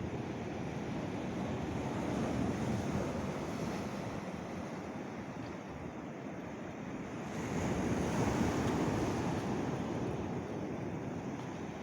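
Sea surf washing in on the shore, the rush swelling up and falling back twice, first about two seconds in and again around eight seconds.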